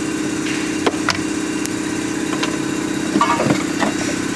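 A steady mechanical hum with a few light metal clicks and knocks, as a cordless impact wrench is set down on the engine and the strut is handled.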